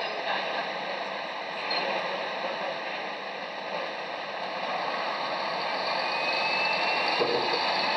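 Passenger-cabin ride noise of a moving city bus towing a passenger trailer: a steady rush of engine and road noise that grows louder towards the end. A faint rising whistle comes in about six seconds in.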